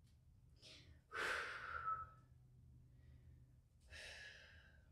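A woman breathing out audibly while holding a deep hip stretch: two long breaths, one about a second in and another near the end.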